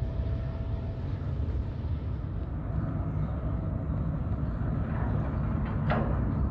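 Steady low rumble of a ferry's engines running. A short sharp knock or clank sounds near the end.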